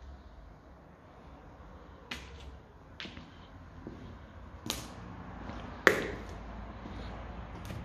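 Footsteps on a rubbish-strewn floor: five sharp cracks and snaps of debris underfoot at uneven intervals, the loudest about six seconds in, over a low steady hum.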